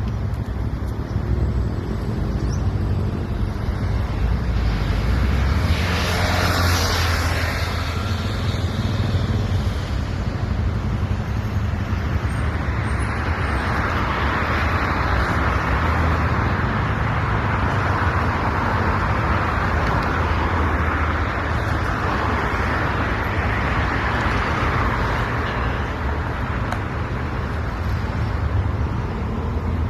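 Steady road traffic noise with a continuous low rumble, swelling louder through the middle stretch.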